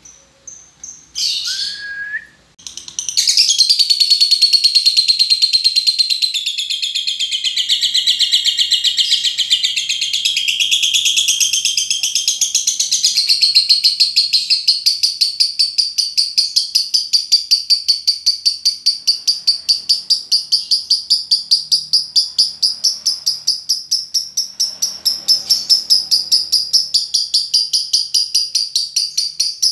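Lovebird giving its long continuous chattering song (ngekek panjang). A few short calls come first, then an unbroken high-pitched chatter that, about halfway through, settles into a fast, even pulsing rhythm.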